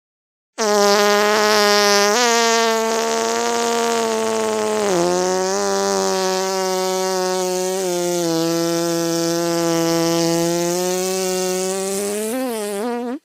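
A long, buzzy fart sound effect held at a steady pitch for about twelve seconds, dipping briefly in pitch a few times and wobbling near the end before it cuts off suddenly.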